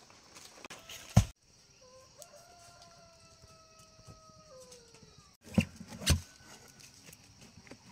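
A rooster crowing: one long call of about two and a half seconds, held level and then falling in pitch at the end, over a steady high hiss. Sharp knocks come just before the crow and twice after it, louder than the crow.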